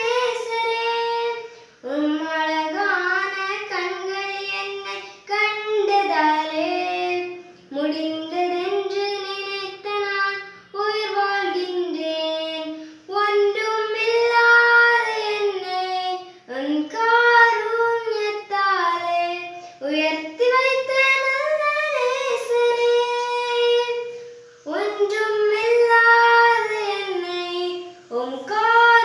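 A young girl singing a Tamil Eucharistic hymn solo and unaccompanied, in sung phrases with short breaks for breath between them.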